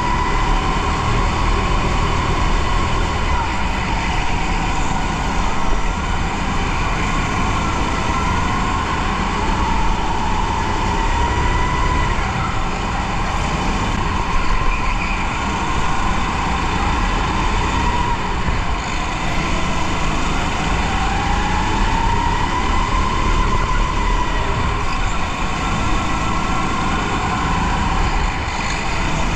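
Onboard sound of a racing rental kart at speed: its motor runs continuously, with a tone that rises and falls every few seconds as the driver accelerates down the straights and lifts for the corners, over steady drivetrain and tyre noise.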